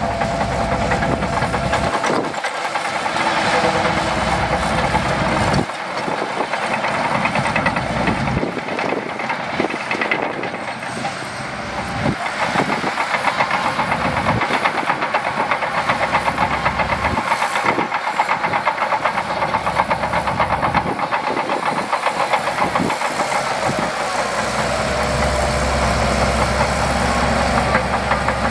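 Shantui DH17C2 bulldozer's diesel engine running under working load, with a steady rapid clatter; its low rumble drops away and comes back several times as the load shifts.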